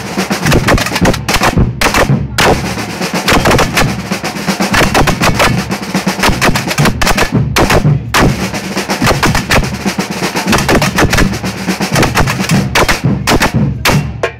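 Samba drum corps (bateria) playing a fast, dense samba rhythm: bass drums, metal snare drums and tamborims struck with sticks together, with a few brief drop-outs of the high hits.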